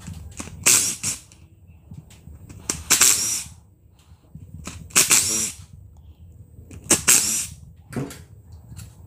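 Cordless Makita impact driver with an external Torx socket hammering out the four bolts that hold the scroll section of an A/C compressor: four short bursts of rattling impacts, about two seconds apart.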